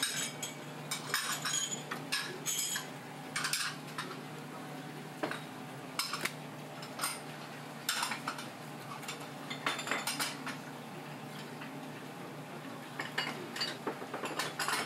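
Kitchen knife scraping and clicking against a plastic cutting board while a fish fillet is skinned, in short, irregular strokes over a steady low hum.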